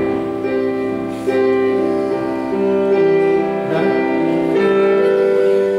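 Slow keyboard music with long held chords that change every second or so.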